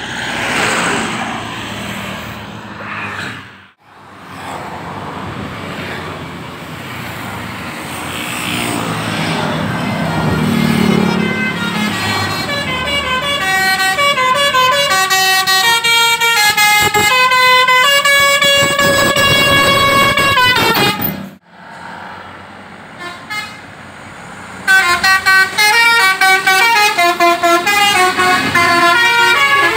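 Tour buses' telolet horns playing rapid multi-note tunes, the notes stepping up and down, over vehicle and street noise. The tune breaks off abruptly about twenty seconds in and starts again, louder, near the end.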